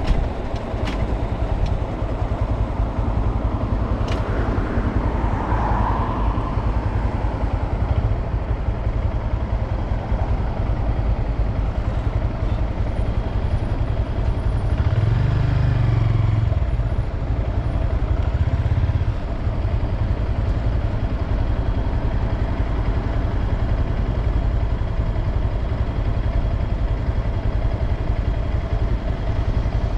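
Honda Grom motorcycle's 124 cc single-cylinder engine running steadily, with a low swell in the engine sound about fifteen to nineteen seconds in.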